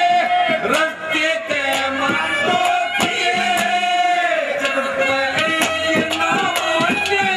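A man singing through a microphone, holding long notes that bend and waver in pitch, with short sharp strikes scattered through the song.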